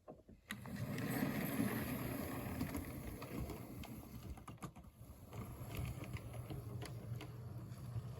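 Hornby OO-gauge model locomotive running smoothly along the track: a steady electric-motor hum with quick clicking of the wheels on the rails. It starts about half a second in, is loudest just after, and slowly fades.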